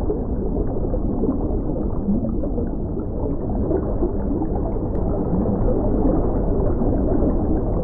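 Muffled sloshing and gurgling of pond water as a crowd of koi churn at the surface. The sound is a steady, noisy rumble with no high end, and it cuts off suddenly at the end.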